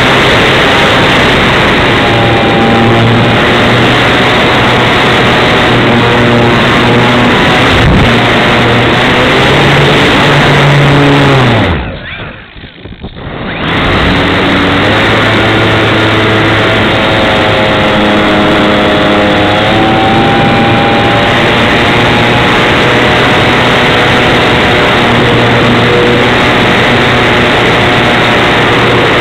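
Wind rushing over a wing-mounted camera's microphone, mixed with the whine of a Tech One Extra 330 model plane's electric motor and propeller, its pitch shifting with throttle. About twelve seconds in, the whine glides down and the sound falls away for about two seconds as the motor is throttled back, then picks up again.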